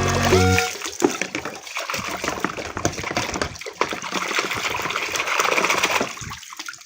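Water running and splashing as toy guns are washed, with scattered light knocks. Background music plays briefly at the start.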